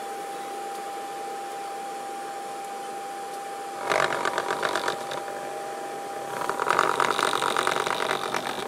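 Homemade paper-plate speaker, a computer speaker driver with a paper plate as its cone, driven by a car head unit, buzzing and rattling in two rough bursts, one about four seconds in and a longer one from about six and a half seconds. A thin steady high whine runs underneath.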